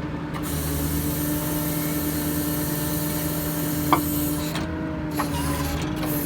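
Ford F-550 crane truck's diesel engine running steadily, driving the PTO hydraulic pump as a hydraulic outrigger extends out and down, with a constant hum. A single sharp click about four seconds in.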